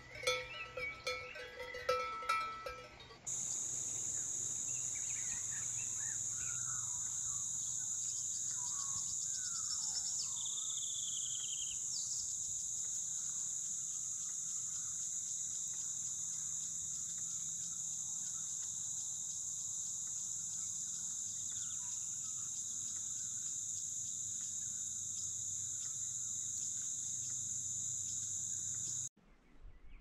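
Cowbells on grazing cattle clanking irregularly for about the first three seconds. Then a steady, high insect drone takes over, with a few bird chirps, and it cuts off shortly before the end.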